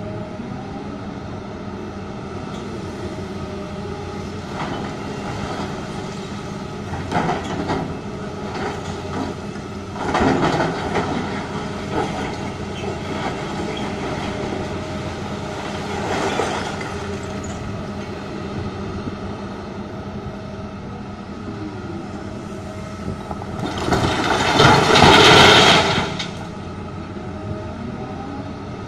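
Heavy diesel engines of a Doosan DX380LC excavator and a standing Komatsu HM400 articulated dump truck running steadily, with shorter clatters of rock around ten and sixteen seconds in. About 24 seconds in, a bucketload of rock pours into the truck's steel dump body for about two seconds, the loudest sound.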